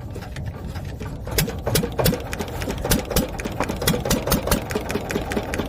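A wooden fishing boat's hand-cranked inboard engine starting up: knocks that come faster and more regular from about a second and a half in, settling into a rapid, even clatter.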